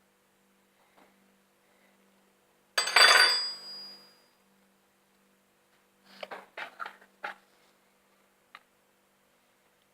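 A loud clink of something hard being struck, ringing briefly, then a quick cluster of quieter clicks and knocks a few seconds later and one last click near the end.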